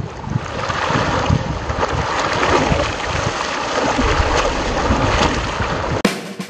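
Children splashing river water with their hands: a dense, continuous run of splashes.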